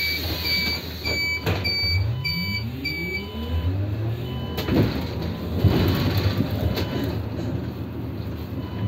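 City bus door-warning beeper sounding a quick series of high beeps, about two a second, which stops about three seconds in. Under it the bus's drive whine rises in pitch as it pulls away from the stop, with a couple of knocks near the middle over a steady low hum.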